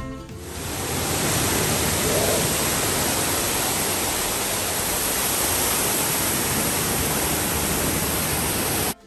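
The Rain Oculus waterfall: a column of water pouring from the bowl overhead and plunging into the pool below, making a steady, even rush of falling water. It swells in over the first second and cuts off suddenly near the end.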